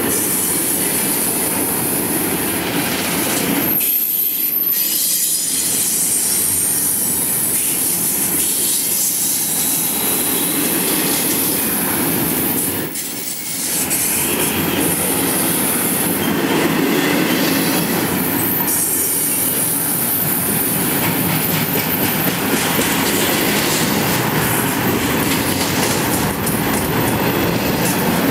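Double-stack intermodal container cars of a BNSF freight train rolling past at speed: steady loud noise of steel wheels on rail and rattling cars, with a thin high-pitched squeal at times.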